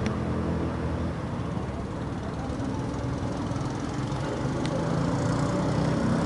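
A steady low mechanical hum, like a motor running, over a faint hiss.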